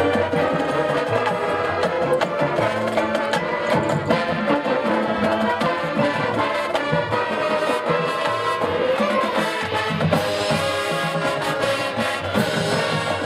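High school marching band playing its field show: brass with percussion, steady and full throughout.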